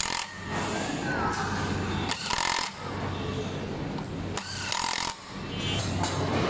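A power screwdriver runs in two short bursts, about two seconds in and again about five seconds in, driving screws into the stem tube of a Kugoo Kirin M4 Pro electric scooter. A steady low hum runs underneath.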